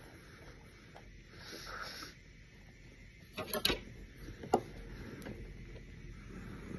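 A metal fork clicking and scraping against a dish: a quick cluster of sharp clicks about three and a half seconds in and a single click about a second later, over a faint room hiss.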